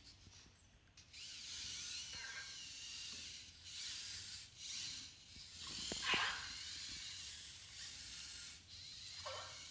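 Anki Cozmo toy robots' small motors and treads whirring as they drive across the tabletop. One robot gives a short electronic chirp that slides downward about six seconds in, and a smaller one just after nine seconds.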